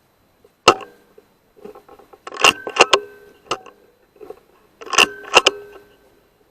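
Sharp metallic clicks and clatter with a brief ringing tone: one sharp click, then two quick clusters of clicks a few seconds apart.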